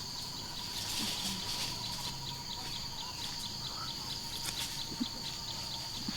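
Forest ambience: a steady high insect drone with a run of short, evenly spaced chirps, about four a second, and a faint steady whistle-like tone beneath.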